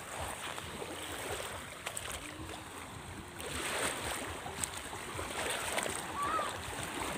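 Sea water washing and sloshing, with faint voices in the background.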